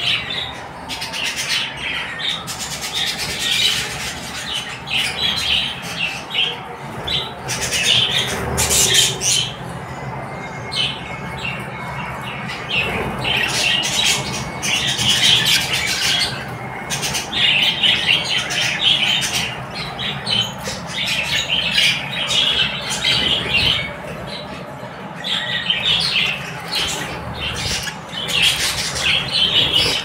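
A colony of budgerigars chirping and chattering, with many high calls overlapping in waves that rise and fall.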